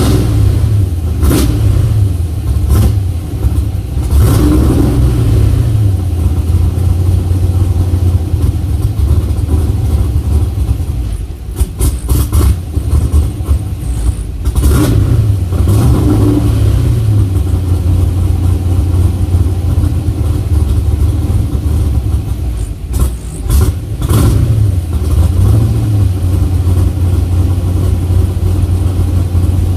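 LS454 V8 engine running with a rough idle, its throttle blipped about three times so the pitch rises and falls back, with sharp pops and clicks now and then over the uneven idle.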